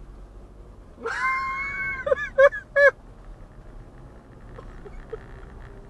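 A man's high-pitched, squealing laugh: one held falsetto squeal about a second in, then three short yelping bursts. Steady low road hum from inside the car runs underneath.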